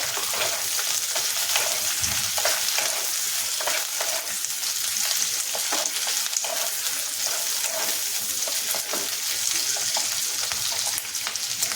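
Chopped capsicum, onion, garlic and ginger sizzling in hot oil in a pan as they are sautéed and stirred: a steady crackling hiss.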